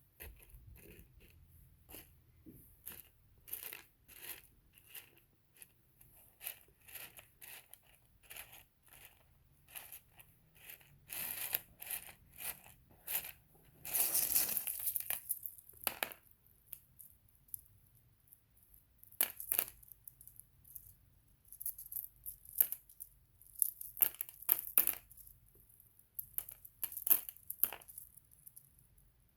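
Small rough opal chips clicking and rattling against one another as they are handled, in scattered sharp clicks, with a longer, louder rattle of stones moving together about fourteen seconds in.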